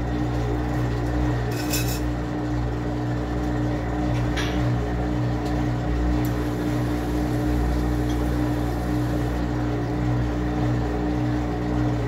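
Top-loading washing machine with a central agitator running: a steady motor hum, with a short click about two seconds in and another about four and a half seconds in.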